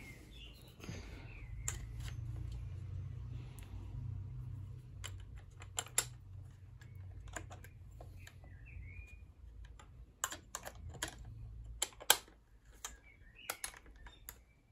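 Irregular light clicks and taps of plastic parts being handled and fitted together, the housing and mechanism of a cordless nail and staple gun being reassembled by hand, over a low hum that fades out near the end.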